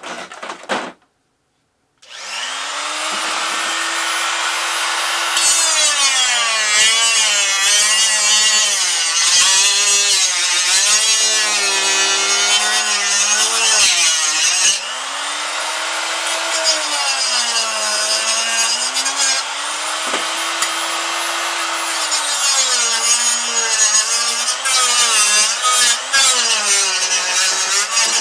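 A handheld cut-off tool spins up and cuts, its motor whine sagging and recovering in pitch as the disc bites, with a harsh grinding hiss over it. It eases off briefly about halfway, then cuts again.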